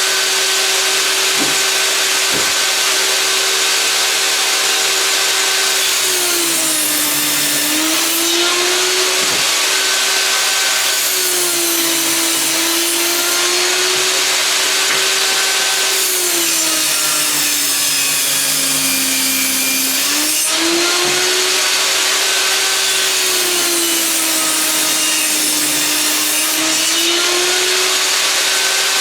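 Einhell table saw running with a steady motor whine, the pitch sagging and recovering about five times as boards are fed through the blade and load the motor, each cut adding a loud rasping hiss of the blade in the wood.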